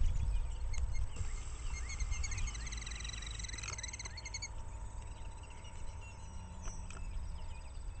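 Killdeer giving a rapid trill of short, high notes for about three seconds, starting about a second in, as part of its broken-wing distraction display to lure intruders away from its nest.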